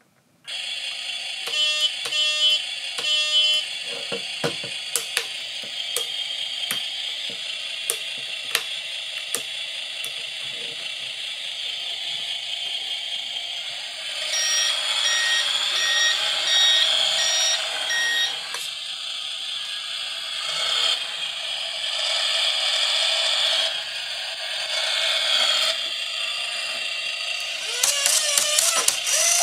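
The sound module of a Carson RC Linde H40D forklift model, heard through its small speaker. It switches on suddenly with a steady simulated engine drone, gives three short horn honks soon after, and partway through plays a run of fast, even warning beeps. Near the end, rising whines come in as the forks lift.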